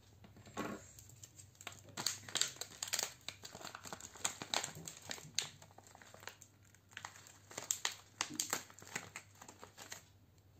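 Clear plastic snack packet crinkling in the hands as it is opened and a piece of millet chikki is worked out of it: many irregular crackles that stop near the end.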